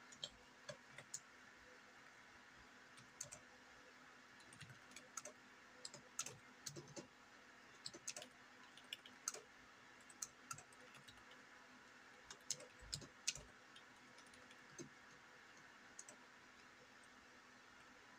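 Irregular clicks of a computer keyboard being typed on, coming in short runs with pauses, over a faint steady hum.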